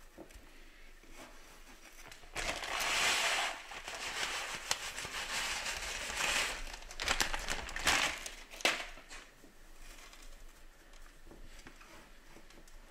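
Coarse salt poured from a plastic bag into a glass dish over meat: a gritty hiss of falling grains for several seconds from about two seconds in, with a few sharper crinkles and clicks near the end of the pour. Before and after it, fainter crunching of the salt being pressed down by hand.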